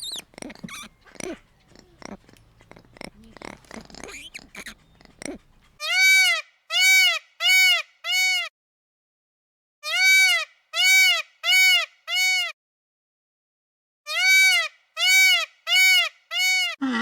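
A looped animal call: one short, high cry that rises and falls in pitch, repeated four times in quick succession, three times over with gaps between, each cry identical. Before it, a few seconds of scattered small clicks and rustles.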